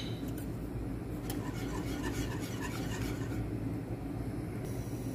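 A wire whisk stirring thick béchamel sauce in a metal pot: faint soft scraping and light clicks over a steady low hum.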